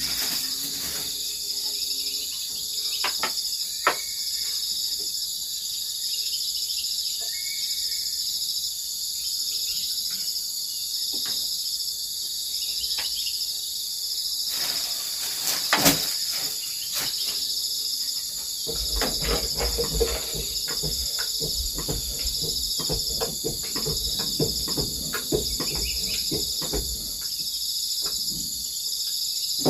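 Steady high-pitched insect chorus at several pitches at once, with scattered clicks and knocks from plastic bottles and a knapsack sprayer tank being handled; the loudest knock comes about 16 seconds in.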